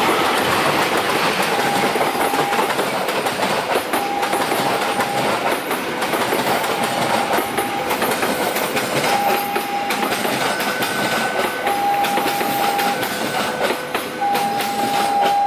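Passenger train coaches rolling past at close range, the wheels clattering over the rail joints in a steady stream of clicks. A steady high tone sounds on and off about every two seconds.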